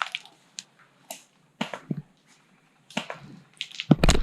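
Scattered sharp snaps and cracks of airsoft gunfire in the woods, a few irregular clicks a second. Near the end comes a loud close snap, followed by low rumbling handling noise on the microphone.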